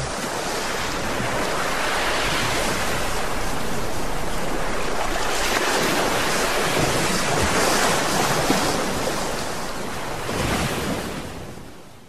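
Recorded sound of ocean surf from the show's soundtrack: a steady wash of waves that swells a little and then fades out near the end.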